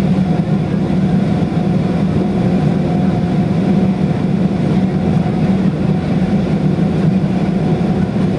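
Cabin noise of a Boeing 737-800 taxiing, its two CFM56-7 engines running at idle as a steady low hum, heard from inside the cabin.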